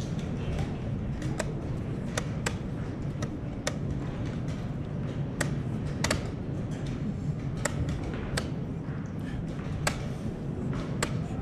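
Sharp, irregular clicks and taps of wooden chess pieces being set down and chess clock buttons being pressed in fast blitz play, about one to two a second, over a steady low background rumble.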